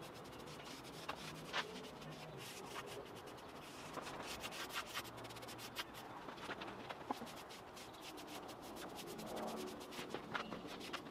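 Faint rubbing and scratching of hand work on a plywood bookshelf, in quick, irregular strokes.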